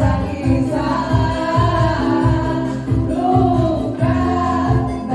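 Women singing a pop song into microphones over a backing track with a steady bass beat, with a group of other women singing along.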